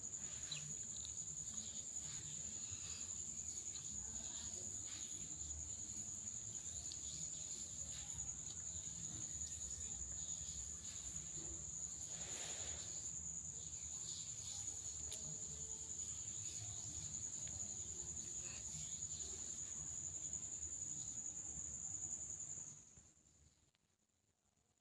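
A steady, unbroken high-pitched tone over faint low background noise with a few scattered ticks. It all cuts off suddenly near the end, leaving near silence.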